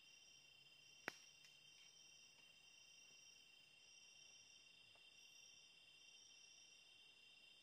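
Faint chorus of night insects in tropical forest: steady high-pitched chirring, with a higher trill that pulses on and off every second or so. One sharp snap about a second in stands out above it.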